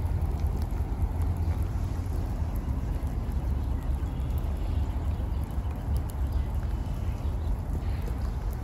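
Rainy outdoor park ambience: a steady low rumble with light scattered dripping of rain and a faint chirp of birds near the end.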